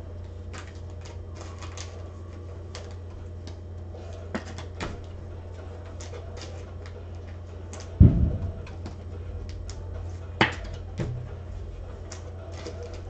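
Scattered light clicks and taps, like a computer keyboard and mouse in use, with one heavy thump about eight seconds in and a sharper knock a couple of seconds later, over a steady low hum.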